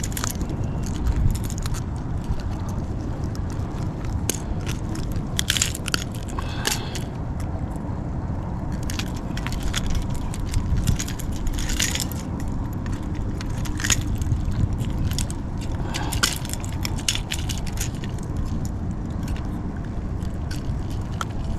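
Handling noise close to the microphone: scattered clicks, rustles and scrapes over a steady low rumble while a just-landed striped bass and tackle are handled.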